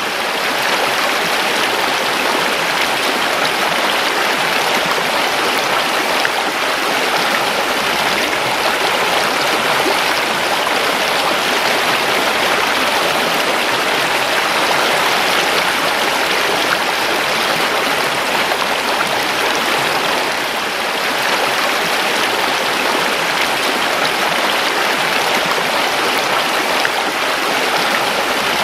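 A creek flowing: a loud, steady rush of running water.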